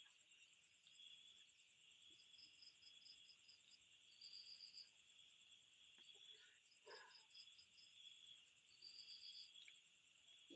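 Faint night chorus of insects such as crickets: a steady high trill, with short runs of rapid chirps every second or two.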